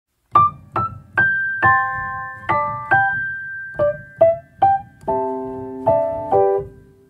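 Piano music: a short phrase of struck single notes and chords, each ringing out, ending on a held lower chord that fades away near the end.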